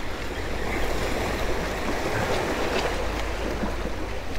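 Sea surf washing against jetty rocks, a steady, even wash of water, with wind rumbling on the microphone underneath.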